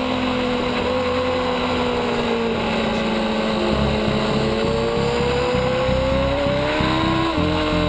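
Kawasaki sport bike's inline-four engine running at high revs in second gear: the pitch sags slightly, climbs for a few seconds under throttle, then drops sharply near the end. Low wind buffeting on the microphone, pulsing from about halfway through.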